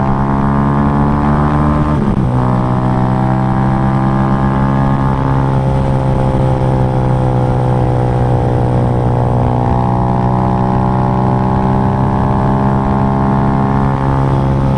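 Yamaha Y15ZR single-cylinder four-stroke engine, built up with a UMA 62 block and an R9 GP exhaust, running hard at a steady high road speed. Its note dips briefly about two seconds in, then holds steady.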